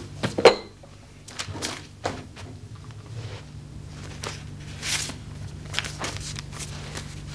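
Letters and paper envelopes handled on a tabletop, with a few sharp knocks and taps, the loudest about half a second in. About five seconds in comes a short burst of paper rustling as an envelope is opened, followed by light clicks, over a faint steady hum.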